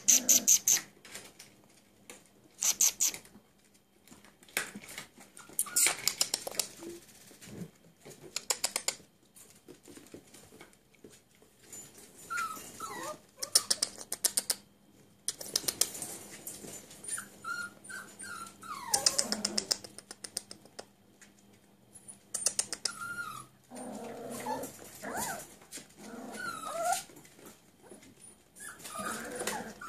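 A litter of Cirneco dell'Etna puppies at play: short high whines and yelps with some growling, scattered through the second half. Between them come quick runs of clicking from claws scrabbling on the tile floor.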